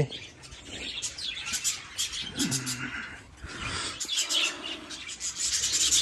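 Many small caged aviary birds chirping: a dense run of short, high-pitched calls.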